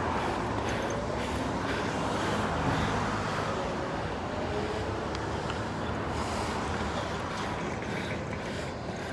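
Road traffic noise: a steady rush of passing cars, slowly fading.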